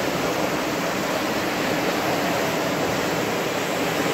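Muddy floodwater rushing past in a flash-flood torrent, a steady, unbroken rush of water.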